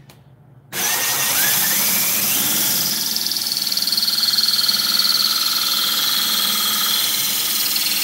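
Cordless drill with a diamond hole saw starting up suddenly just under a second in, its whine rising as it comes up to speed, then grinding steadily through thin aquarium glass kept wet with water.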